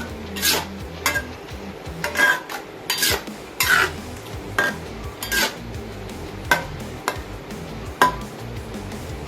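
A metal utensil stirring in a cooking pot, clinking and scraping against its sides in about a dozen ringing knocks at irregular intervals.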